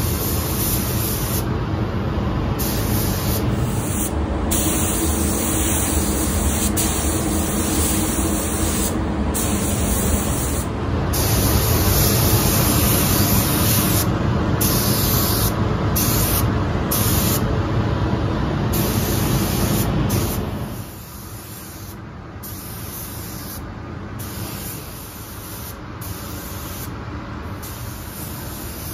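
Gravity-feed compressed-air paint spray gun hissing steadily while spraying sealer and base coat onto motorcycle body panels. The hiss drops noticeably in level about two-thirds of the way through.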